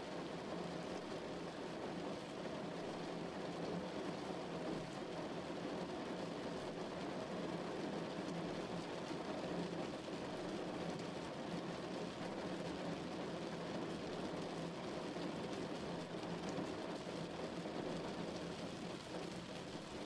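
Rain beating steadily on a car, an even, unbroken wash of drops on the body.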